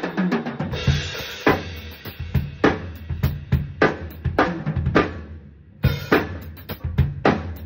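Drum kit played freestyle: fast kick, snare and tom strokes with cymbal crashes, breaking off briefly a little past halfway before dense strokes resume.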